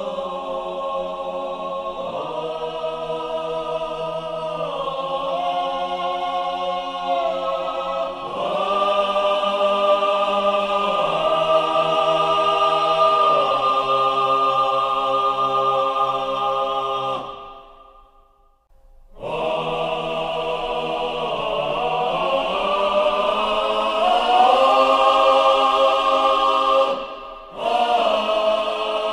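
Choral music: a choir singing slow, sustained chords. It fades out briefly about two-thirds of the way in and dips again near the end.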